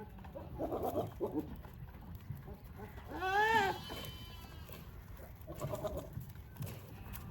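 A goat bleating: one clear, loud bleat that rises and falls in pitch about three seconds in, with softer, lower calls a second in and again near the end.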